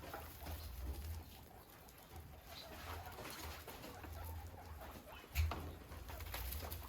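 Guinea pigs moving about and rustling in their bedding, a light patter of small clicks and scuffles, with one louder thump about five and a half seconds in.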